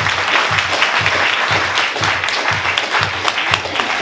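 Audience applauding, dense clapping throughout, over background music with a steady beat of about two and a half thumps a second.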